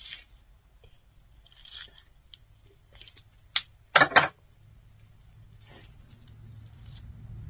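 Hand wire stripper cutting and scraping through the thick insulation of 0-gauge copper power cable: faint scraping rasps, a sharp click about three and a half seconds in, then a louder tearing rasp just after.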